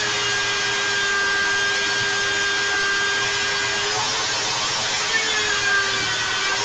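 Bench-clamped electric drill spinning a wire wheel, with a small steel pendant held against it. The motor runs with a steady whine whose pitch shifts briefly a couple of times in the second half as the piece is pressed on and eased off.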